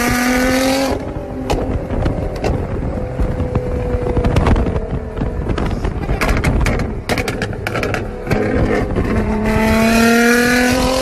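Car engine accelerating hard at high revs, its pitch climbing steeply at the start and again near the end. In between comes a rushing noise with scattered sharp clicks.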